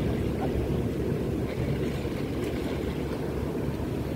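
Steady low rush of wind on the microphone over sea waves washing against breakwater rocks.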